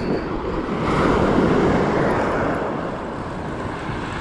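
Wind buffeting the microphone over waves washing onto a shingle shore. The noise swells about a second in and eases off again.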